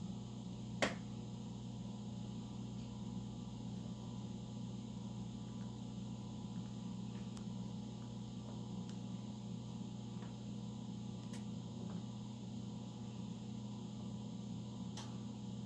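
Steady low room hum with a few sharp clicks as pet rats feed from a ceramic bowl in a wire cage; the loudest click comes about a second in, the others are spaced several seconds apart.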